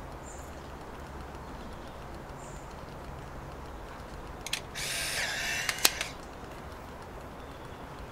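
Instant camera taking a picture: a shutter click, then the motor whirring for about a second as it ejects the print, ending in two sharp clicks.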